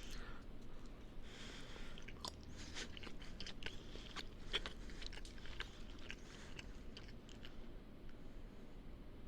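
A person biting and chewing a burrito, with many small irregular mouth clicks.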